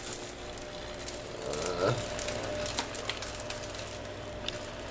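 Loose grow-bed pebbles clicking and rattling as bok choy roots are pulled and picked free of them, a few scattered clicks at a time, over a steady low hum.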